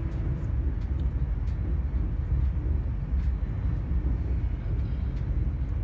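Passenger train running along the line, heard from inside the carriage as a steady low rumble with a few faint clicks.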